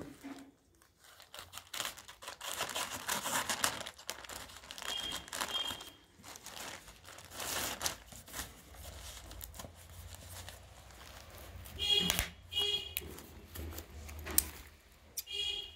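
Plastic courier mailer bag crinkling and tearing as it is slit open with scissors and a cardboard box is slid out of it, with a couple of short high squeaks later on.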